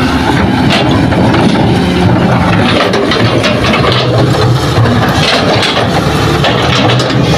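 Hitachi hydraulic excavator's diesel engine running loudly under load as its bucket digs into hard ground. Short scrapes and knocks come at irregular moments, likely the bucket teeth in the earth.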